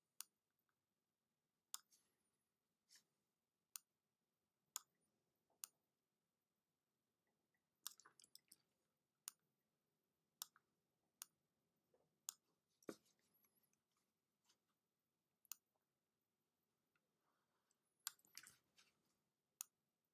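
Faint, irregular clicking of a computer mouse button during brush and eraser strokes in an image editor, about one click a second, with quick flurries of clicks about eight seconds in and near the end.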